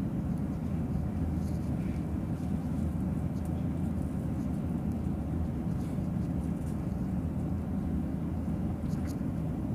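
Steady low rumble of an Airbus A350 heard from inside the passenger cabin as the jet taxis.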